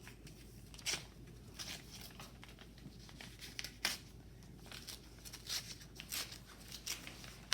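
A paper greeting-card envelope being torn open by hand in a series of short, irregular rips, with paper crinkling in between.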